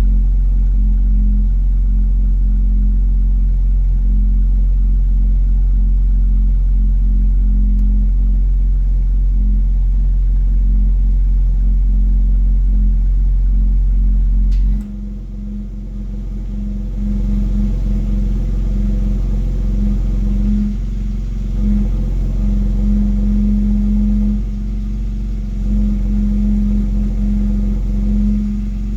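BMW X3 exhaust droning with a low hum and rattle with the engine off-throttle. The deepest part of the drone drops out suddenly about halfway through, then the hum swells and fades several times. It is an unexplained exhaust hum that comes and goes and stops when the accelerator is pressed slightly without revving.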